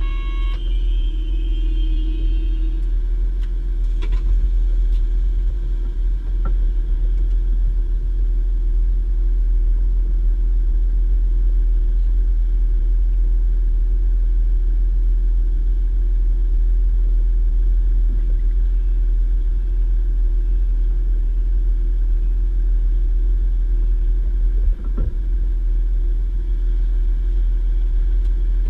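Cabin of a DB Class 612 tilting diesel railcar under way: the steady low rumble of the underfloor diesel engines and running gear, with a steady hum over it and a few faint knocks from the track.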